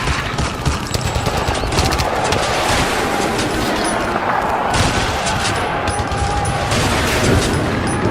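Battle sound effect of dense, continuous gunfire: rapid rifle and machine-gun shots overlapping without pause over a low rumble.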